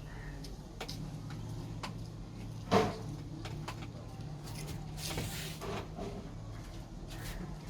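Hands working a head massage: scattered light taps and rubs, with one loud sharp slap about three seconds in and a brief rustle near the middle, over a steady low hum.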